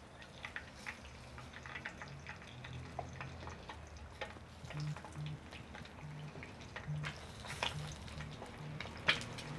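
Hot oil sizzling with scattered crackles as an egg fries on a tortilla in an enamel frying pan, the oil being spooned over the egg to baste it. A sharper tap near the end.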